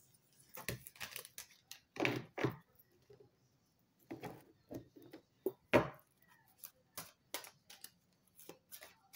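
Tarot cards being handled and shuffled: an irregular run of short clicks, slaps and rustles, the loudest about two seconds in and near the six-second mark.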